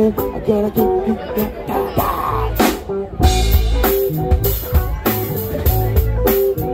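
Live band playing electric guitars and drum kit. About three seconds in, after a cymbal crash, the music gets louder, with a heavy bass and kick drum.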